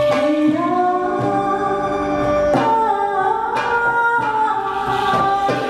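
Live music from a small ensemble: singing in long held notes that slide up and down in pitch, over plucked and bowed string instruments.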